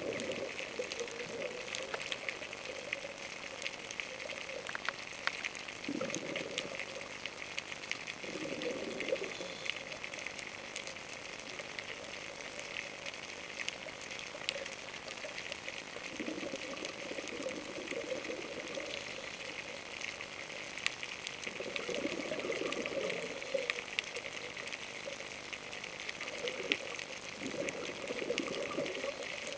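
Underwater sound: a diver's exhaled bubbles rushing past the microphone every few seconds, over a steady crackle of faint clicks.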